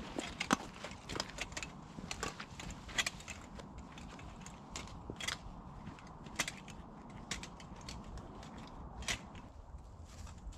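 Footsteps of a walker on a forest path, with loaded backpack gear clinking and creaking at each stride: irregular sharp clicks and small knocks over a low steady rumble.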